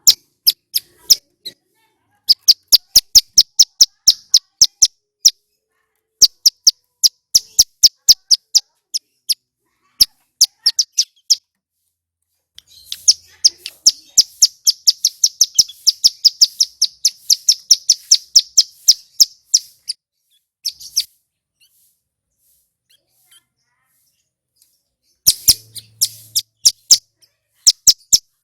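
Male ciblek gunung (a mountain prinia) singing loudly. It gives runs of sharp, high, rapidly repeated notes in several bursts, the longest a fast trill lasting about seven seconds near the middle, with a pause before a final burst near the end.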